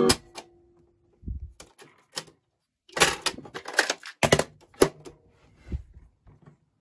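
Mechanical piano-key controls of a Thorn Ferguson 3T11 radio cassette recorder clicking as the playing tape is stopped, cutting the music off. This is followed by a run of sharp plastic clicks and clacks as a cassette is handled and loaded and the cassette door is shut.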